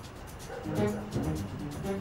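Background music from the drama's score: low held notes over a light, fast ticking beat.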